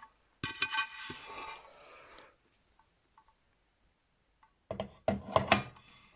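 Handling noise from a Technics SL-D202 turntable as it is cleaned: a rubbing, scraping stretch at the start, a quiet gap, then a quick run of knocks and clicks near the end.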